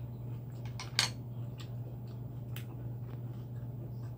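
A fork clinking against a plate a few times, one sharp clink about a second in louder than the rest, over a steady low hum.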